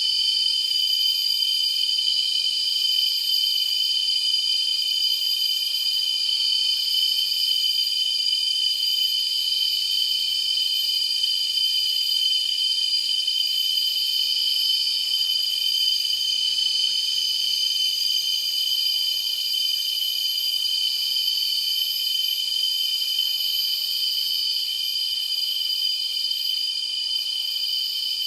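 Tropical rainforest insect chorus: several insects holding steady high-pitched calls, with one very high call pulsing about once a second before it settles into a continuous tone.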